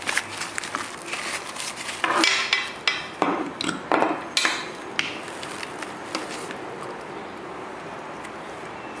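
Handling noise of a blood pressure cuff set: the fabric cuff and rubber tubing rustle, with several clicks and knocks against a hard tabletop. The sounds are busiest in the first five seconds, then die down to light handling.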